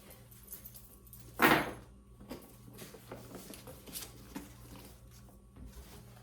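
Handling noises from a leather handbag and its adjustable strap being fitted on the body: light clicks and rustles of leather and strap hardware, with one louder rustling knock about a second and a half in.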